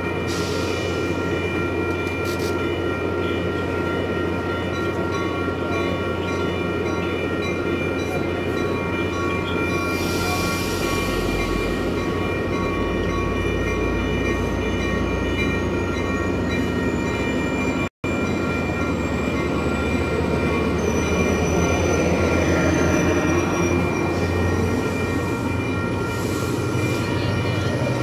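A COASTER commuter train of bilevel coaches moving slowly past at close range: a steady low rumble with several high, held tones over it. About two-thirds through the sound drops out for an instant, and after it a high tone slides downward.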